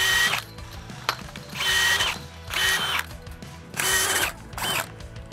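Cordless drill spinning a chain link tie-twisting tool in five short trigger pulls, each a brief burst of motor whine. The tool is twisting and trimming the tails of 11-gauge steel fence ties.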